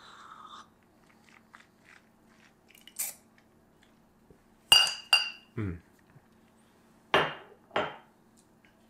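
A short sip from a small espresso cup, then ceramic cups knocking and clinking on a hard counter: two sharp, ringing clinks close together a little under five seconds in, and two more a little after seven seconds.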